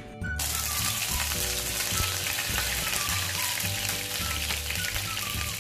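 Fresh curry leaves dropped into hot coconut oil in a frying pan. The oil starts sizzling and spluttering suddenly a moment in, then keeps on steadily.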